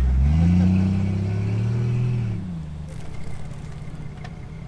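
Vehicle engine revving up in the first second, held there for about two seconds, then eased back down to a low idle.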